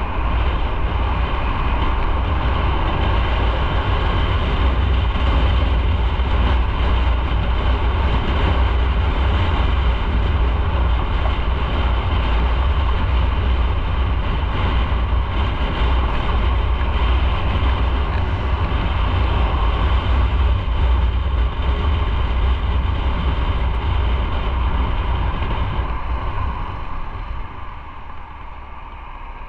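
Motorcycle riding at speed, its engine and road noise under heavy wind rush on the microphone; the noise eases near the end as the bike slows.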